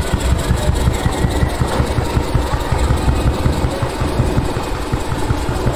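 Large truck's diesel engine running steadily at idle, with a rapid low pulsing exhaust note.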